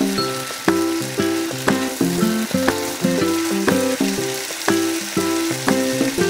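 Broccoli, cauliflower and beef sizzling in a hot frying pan as they are stirred with a wooden spatula, under background music of plucked notes, about two a second.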